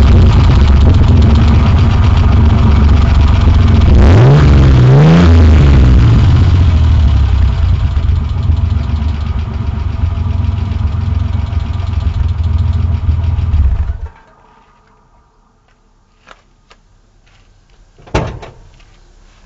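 1991 Ford Explorer's 4.0 L V6 running through a GAZ-53 truck exhaust: a quick rev about four seconds in, then idling until the engine is switched off and cuts out abruptly, a few seconds before the end. After it stops come a few light clicks and then one sharp thump.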